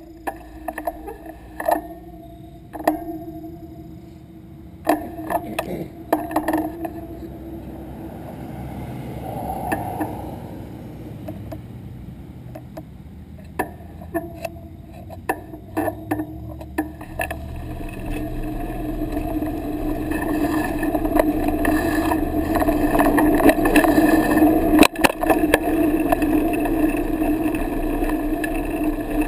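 Bicycle riding along a road, heard close to the handlebars: a steady hum of tyre and wind noise with scattered clicks and knocks as the bike rattles. It grows louder about two-thirds of the way through.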